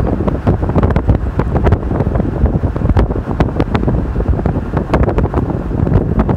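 Strong gusty wind ahead of a thunderstorm buffeting the microphone: a loud, low rushing noise broken by constant irregular thumps.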